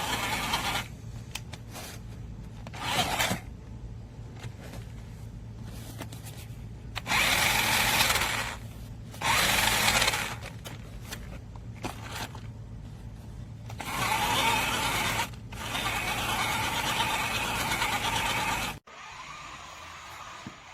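Toy RC monster truck's small electric drive motor and plastic gearbox whirring in repeated bursts of a second or two as it is driven, stopping and starting, over a steady low hum that cuts off suddenly near the end.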